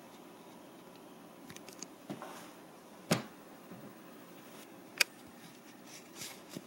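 Quiet room tone with faint rustling, a soft knock about three seconds in and a sharp click about five seconds in.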